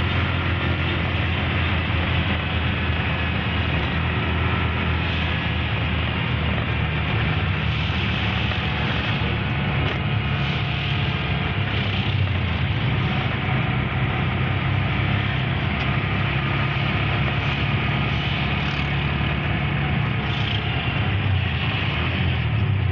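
Steady engine and road noise of a car driving through city traffic, a continuous low rumble with no breaks.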